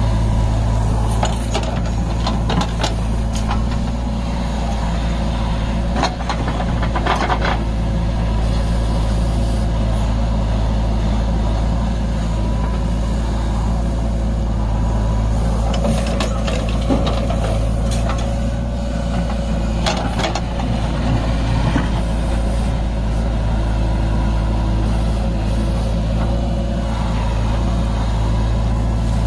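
Heavy diesel engine running steadily under load, with a few scattered knocks and clanks.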